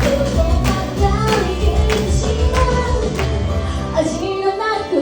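Pop song with female singing over a steady beat and bass; the beat and bass drop out about four seconds in, leaving the voices.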